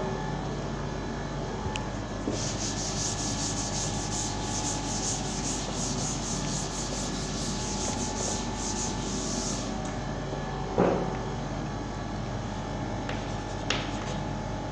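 Blackboard duster rubbed back and forth across a chalkboard, erasing chalk in rapid repeated strokes that stop about ten seconds in. A single knock follows about a second later, and a short click comes near the end.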